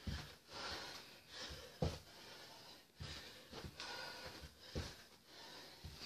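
Heavy breathing mixed with several dull thuds of trainers landing on a carpeted floor and stair during repeated squat jumps off the bottom step, the loudest landing about two seconds in.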